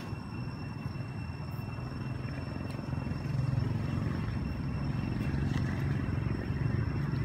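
Low, steady rumble of a motor vehicle's engine, growing louder about three seconds in, with a faint steady high whine above it.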